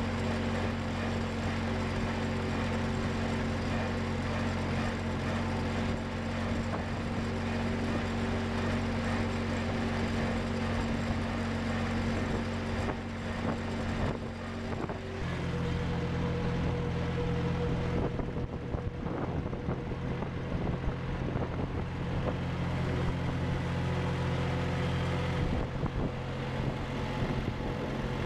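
Compact tractor engine running steadily under way, with road and wind noise; about halfway through the engine note shifts to a different pitch and stays there.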